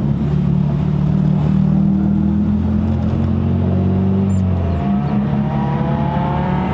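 Honda K24A four-cylinder engine with a straight-pipe stainless exhaust heard from inside the car, running with a steady low drone. A little past two-thirds of the way in, a thinner whine starts rising slowly in pitch as the revs climb.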